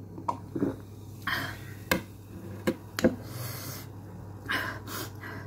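Drinking from a glass mug: sips and swallows with a few short breathy exhales, and several sharp clicks and knocks from the mug being handled and set down, over a steady low hum.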